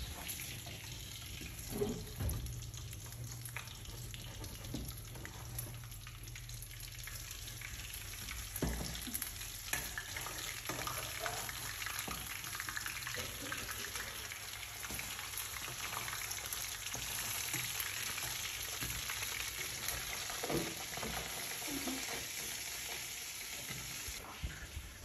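Fish frying in hot oil in a wok, sizzling steadily, with a few sharp knocks of a metal ladle against the pan.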